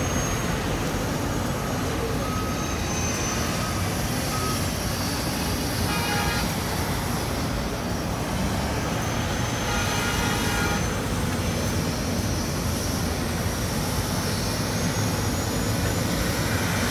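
Diesel engine of a Doosan crawler excavator running steadily, a low continuous rumble. Brief faint pitched sounds rise over it about six and ten seconds in.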